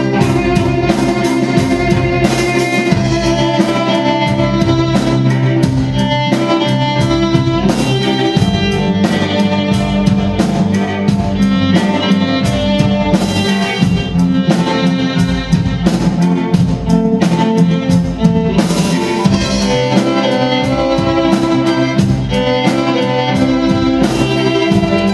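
Symphony orchestra with the violins leading, backed by a drum kit, playing a loud, steady rock arrangement.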